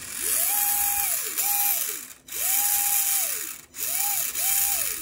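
Axial SCX24 micro crawler's replacement 030 micro motor and geartrain whining up to speed and back down in five bursts of throttle, the wheels spinning free with the truck held in the hand.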